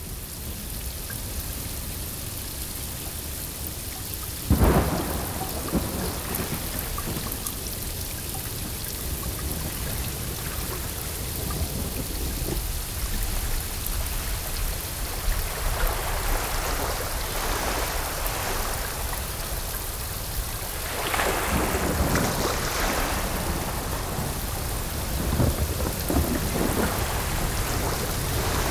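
Thunderstorm: steady rain falling, with a sharp thunderclap about four and a half seconds in and rolls of thunder rumbling later on.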